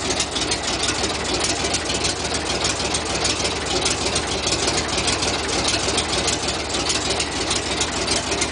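Six-cylinder Buda gasoline engine of a Plymouth JLB industrial locomotive idling steadily, with a fast, even beat.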